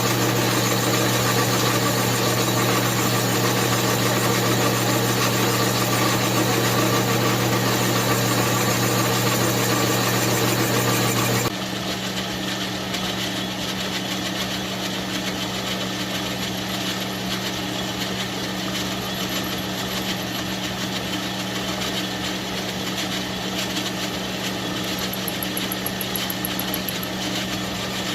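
Chainsaw engine running at a steady speed with an even drone. About eleven seconds in it turns quieter and duller without changing pitch.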